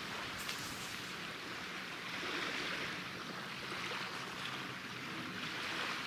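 Wind and waves on choppy sea: a steady rushing hiss that swells and eases every second or two.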